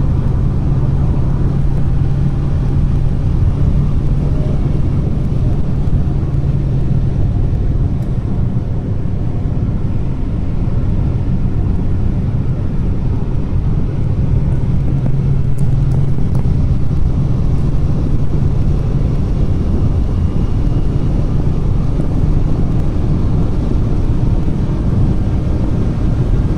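Proton Inspira at high speed: steady road and tyre noise with a low drone that swells and fades, strongest at the start and again about halfway through. The owner takes it for a worn passenger-side wheel bearing.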